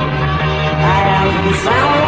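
Live rock band music with the drums taken out: guitar and bass playing steadily, and a voice singing a wavering line from about a second in.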